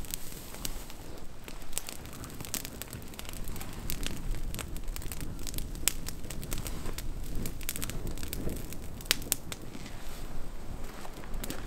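Campfire catching from a bundle of dry grass tinder under thin kindling: irregular, sharp crackling and popping of the burning grass and twigs.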